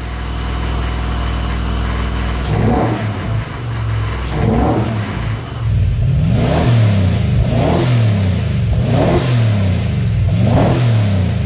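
Ford 5.0 V8, swapped into a BMW E36 M3, running at a steady idle through its newly installed exhaust, then revved in about six quick throttle blips, each rising and falling back.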